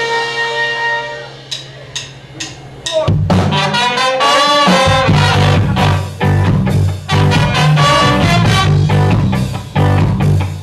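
Live ska band: a held horn chord dies away, then four evenly spaced clicks count in. About three seconds in, the full band comes in together, with trumpet, trombone and saxophone over a heavy bass line and drum kit, in an upbeat ska groove.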